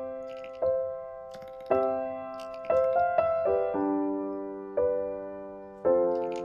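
Background piano music: slow single notes and chords, each struck and left to fade, about one a second.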